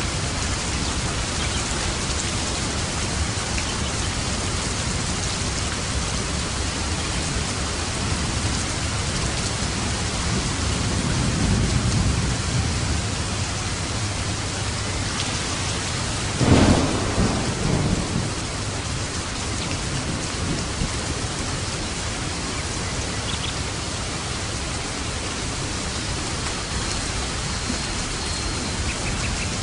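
Steady heavy rain falling, with thunder: a low rumble swells about a third of the way in, then a sharp thunderclap a little past halfway rolls off into rumbling for a couple of seconds.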